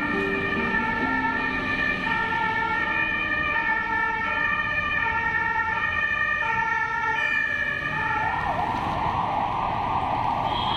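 An emergency vehicle's two-tone siren alternating between a low and a high pitch. A rushing noise joins for the last few seconds.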